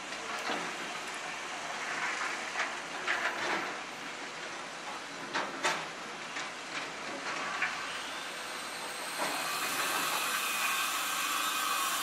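JCB backhoe loader working: a steady, noisy machine hiss broken by several sharp knocks and clanks in the first half, the hiss growing louder about nine seconds in.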